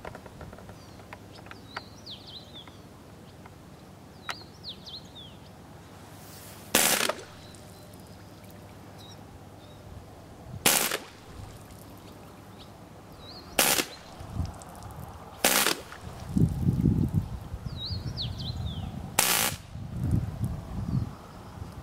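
Prototype electronically controlled full-automatic airgun firing five short bursts into water, each under half a second long. The bursts come at about 7, 11, 13.5, 15.5 and 19 seconds in. A low rumble runs under the later part.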